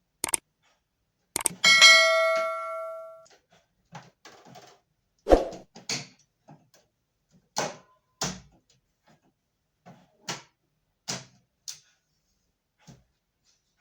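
Scattered knocks and clicks of hard objects being handled, with one metal piece struck about two seconds in that rings and fades over about a second and a half.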